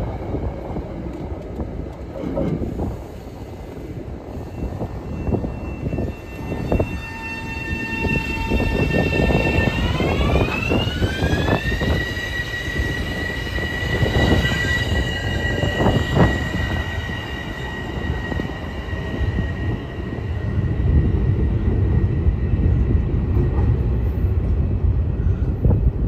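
Metro-North electric multiple-unit train moving past the platform on rails, with a low rumble and wheel clatter. Over it a whine of several tones holds, rises in pitch for about two seconds, then holds steady at the higher pitch and fades. This is the traction motors' whine as the train picks up speed.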